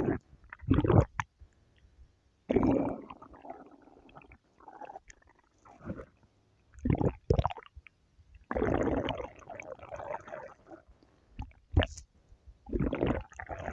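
Stomach growling: a run of irregular gurgling rumbles, each lasting a fraction of a second to about two seconds, with short quiet gaps between them and one sharp short gurgle a little before the end.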